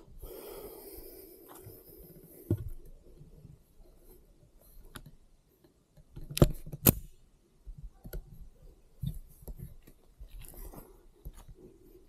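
Small metallic clicks and rattles of a pistol and its gear being handled after firing, with two sharp, loud cracks about half a second apart a little past the middle.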